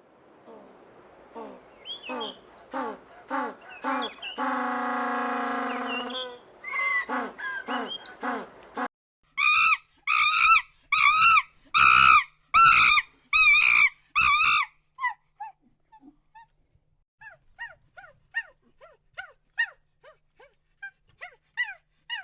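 A run of animal calls from different animals. First a string of lower calls with one long held call, then about seven loud calls in quick succession, then many short, high chirps.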